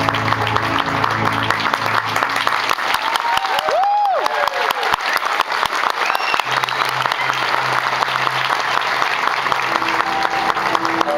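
Audience applauding in a dense, steady patter over music playing through the arena's sound system. A brief tone that rises and falls cuts through the clapping about four seconds in.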